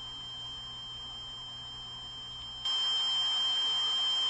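Playback of a digital voice recorder: steady hiss with a faint high whine, then about 2.7 s in a louder even hiss for about two seconds. The investigators present this noisy stretch as an EVP, a spirit's voice answering "It hurt".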